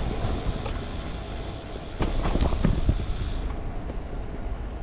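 Folding bicycle riding over an asphalt road: a steady low rumble of tyres and wind on the microphone, with a few sharp rattling knocks about two seconds in. A thin, high, steady tone joins about three and a half seconds in.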